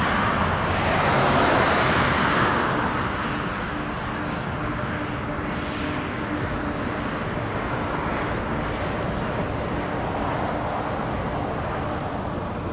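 Jet airliner's engines at takeoff power, a broad steady engine noise that is loudest in the first two seconds and then eases to a steady rumble with a faint hum.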